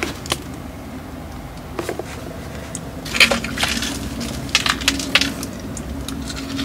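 Crunchy bites into crispy fried chicken, with chewing: a few light clicks and rustles at first, then a quick run of crackling crunches starting about three seconds in.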